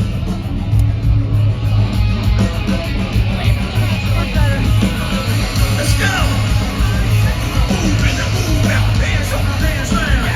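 A live nu-metal band playing loud, with a heavy, steady bass. About four seconds in, a crowd starts yelling over it.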